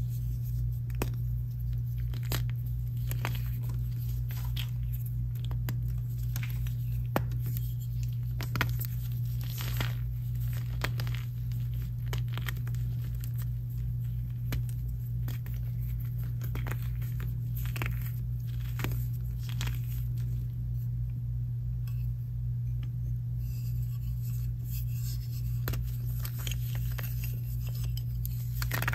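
Blocks of gym chalk snapped and crushed by hand: dry crunching and crumbling with many sharp cracks, over a steady low hum.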